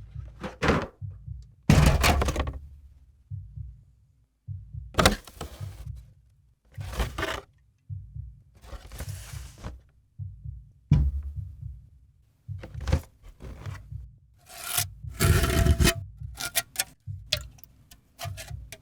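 Empty aluminium Monster Energy drink can being crushed, scraped and struck: a series of separate metallic crunches, scrapes and knocks with short gaps between, the longest crunches near the start and about three quarters through, and a quick run of small clicks near the end.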